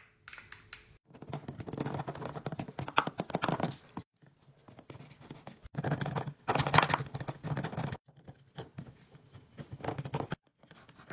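Plastic toy dental polisher from a Melissa and Doug Super Smile dentist kit scrubbing the plastic teeth of the toy mouth model, a scratchy rubbing sound in three bursts separated by short pauses.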